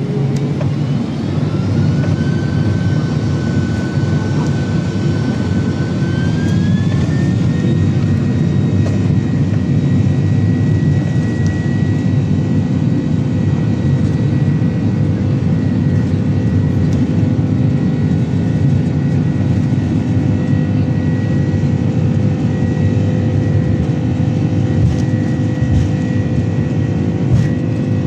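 Boeing 767-300's jet engines heard from inside the cabin, spooling up. A whine rises in pitch in two steps over the first several seconds, then holds steady over a loud, constant rumble, as when the engines come up to takeoff thrust.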